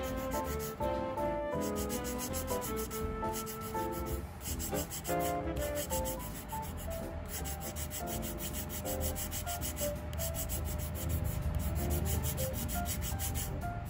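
Nail file rasping on a plastic nail tip in repeated short back-and-forth strokes, over background music with a melody.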